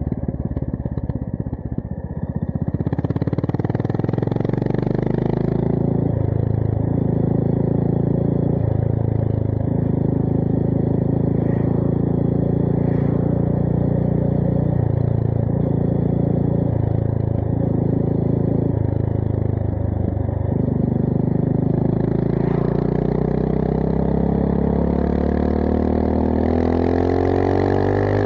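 Honda GB350S single-cylinder engine running through a MILLER Spitfire slip-on exhaust while the bike is ridden. The engine note breaks off briefly several times, in a way that fits gear changes. Over the last few seconds its pitch rises steadily as the bike accelerates.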